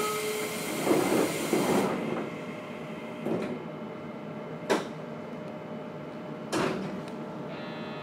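Pneumatic sliding doors of a JR Kyushu 811 series electric train closing: a hiss of air lasting about two seconds, then three sharp knocks a second or two apart. All of it sits over the steady hum of the train's equipment, with a short high tone near the end.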